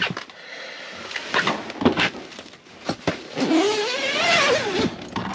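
A door being opened to go outside: a few clicks and knocks, then a long wavering creak about three and a half seconds in.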